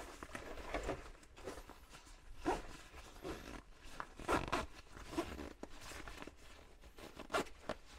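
Zipper on a nylon backpack pocket being worked closed in short, uneven pulls, with fabric rustling, as a raincoat is forced into a tightly packed pocket.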